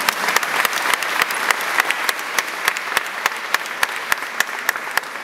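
A crowd applauding: many people clapping together, with a number of louder single claps standing out from the mass.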